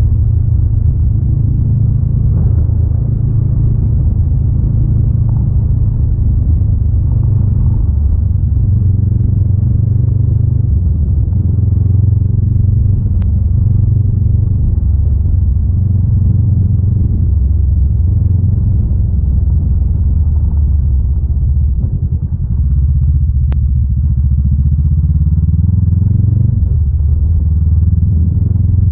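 Honda Rebel 500's parallel-twin engine running under way, its note rising and falling with the throttle. Near the end it dips briefly, then the pitch climbs as it pulls again.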